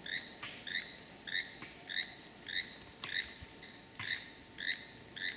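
Nature ambience of insects and frogs: a steady high-pitched insect trill under a short chirping call that repeats about twice a second.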